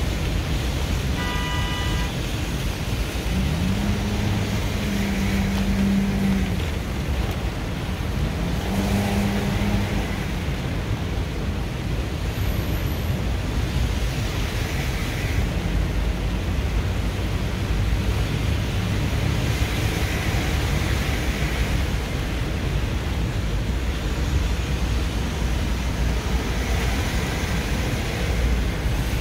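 Steady noise of heavy rain on a moving car and its tyres on the flooded road, heard from inside the car. A brief high beep comes early on, and a low tone rises and holds twice between about 3 and 10 seconds in.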